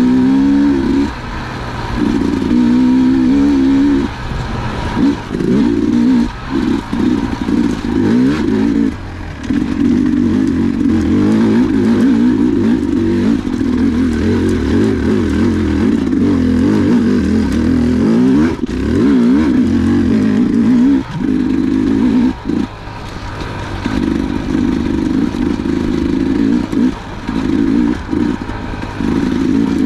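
Dirt bike engine under the rider's throttle on a trail, revving up and down with frequent brief throttle-offs as speed changes.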